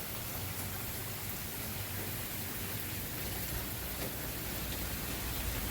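Steady rain falling, an even hiss, with a low rumble underneath that grows stronger about halfway through.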